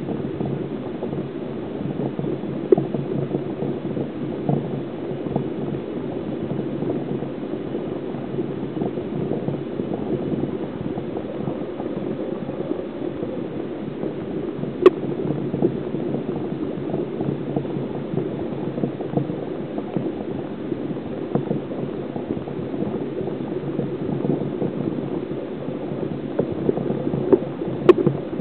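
Steady low gurgling of water in a tank, with scattered small crackles and a sharp click about halfway through and again near the end.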